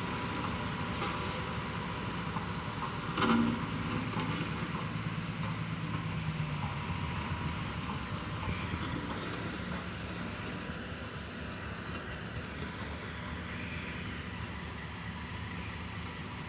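Heavy road-construction machinery running with a steady mechanical rumble and hiss. A short loud burst comes about three seconds in.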